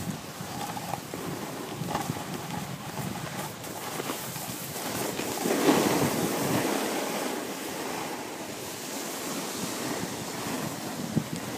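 Steady hiss of snowboards sliding and scraping over groomed snow, mixed with wind on the microphone, growing louder around the middle.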